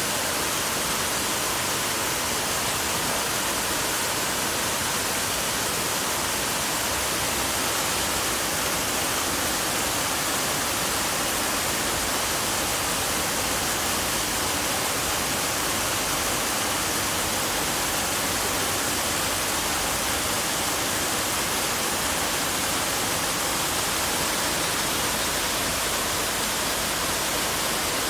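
Lincoln Center's Revson Fountain, its many vertical water jets splashing back into the basin in a steady, even rush of water.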